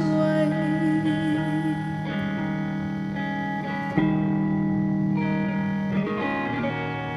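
Electric guitar playing slow, ringing chords, changing chord every second or two, with a sharper strum about four seconds in.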